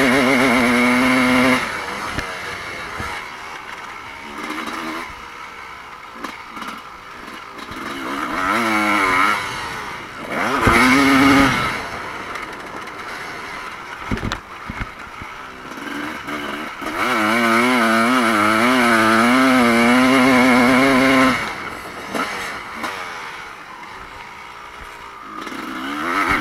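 Motocross race bikes passing close by, engines revving up and down as they go round the track, with other bikes audible further off in between. The loudest passes come at the start, about ten seconds in, for several seconds past the middle, and again at the very end.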